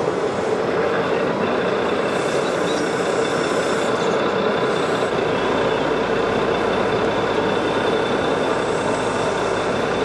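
Steady, even mechanical running noise of radio-controlled model tractors working a soil field, over the general din of the hall. The lowest rumble steps up about halfway through.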